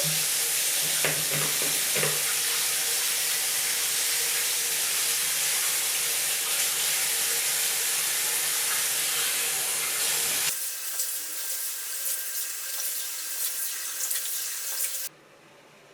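Water running from a tap into a sink, a steady rushing hiss. About ten seconds in it switches abruptly to a thinner, lighter hiss, and near the end it cuts off.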